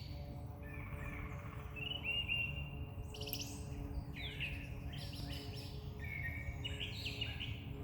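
Several small songbirds chirping and chattering back and forth high in a tree, in many short, varied, overlapping calls, over a steady low background rumble.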